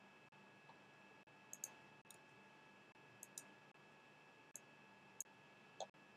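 Faint computer mouse button clicks, about seven spread through, some in quick pairs, over a faint steady high whine.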